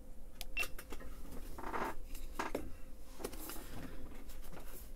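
A paperback workbook being handled: paper rustling, with several short scuffs and clicks.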